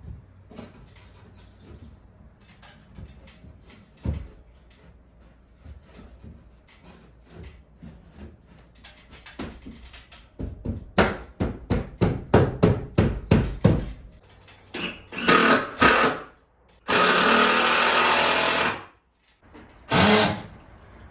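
Carpentry on wood framing: a fast run of hammer blows, about four a second, followed by a power drill running in short bursts, the longest about two seconds.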